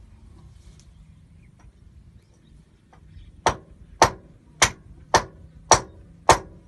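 Hammer blows during a motor repair: six sharp, evenly spaced strikes, about two a second, starting about halfway through.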